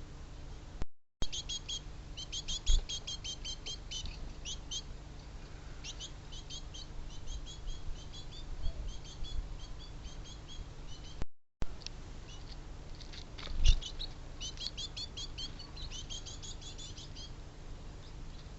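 Small songbirds chirping in quick, rapid runs of high notes, with a couple of low thumps about three seconds in and again near fourteen seconds. The sound cuts out completely for a moment twice.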